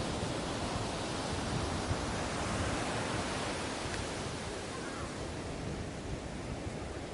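Ocean surf washing on a beach: a steady rush of breaking waves that swells a little in the first few seconds and eases off after about four seconds.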